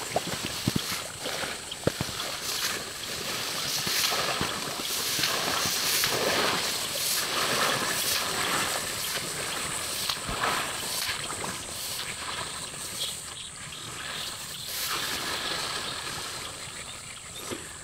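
Footsteps pushing through tall grass on marshy ground: a rustling swish of stems that swells and fades with each stride.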